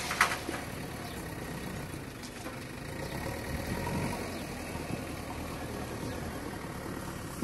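Steady low rumble of distant engines and road traffic, with one sharp click about a quarter of a second in.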